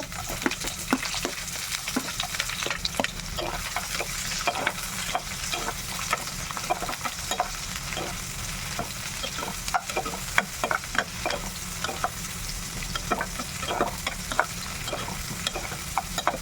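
Chopped onion frying in hot oil in a kadai: a steady sizzle, with the stirring utensil clicking and scraping against the pan many times at irregular intervals.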